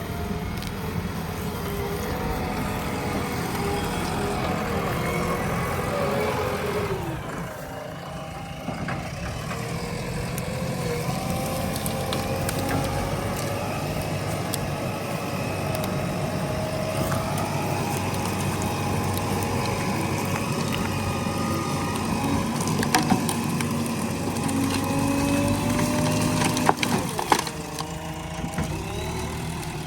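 A JCB 3DX backhoe loader's diesel engine runs under working load, its pitch rising and falling as the hydraulics are worked. A few sharp cracks and snaps come in the last third.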